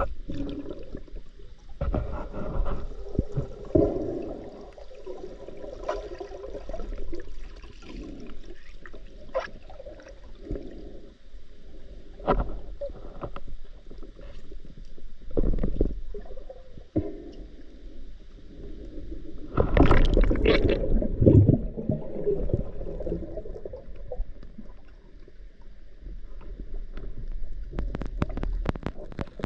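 Underwater gurgling and swishing picked up through a camera's waterproof housing on a swimming spearfisher, with scattered knocks against the housing. A louder rush of water comes about twenty seconds in.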